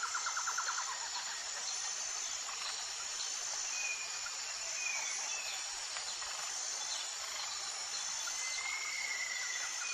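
Rural outdoor ambience of steady high-pitched insects chirring, with a rapid trill in the first second and a few short bird whistles, the longest one near the end.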